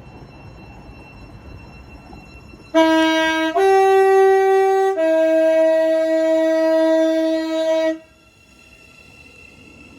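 Two-tone train horn sounded low–high–low, starting about three seconds in. A short low note gives way to a higher note for about a second and a half, then a long low note for about three seconds, which cuts off.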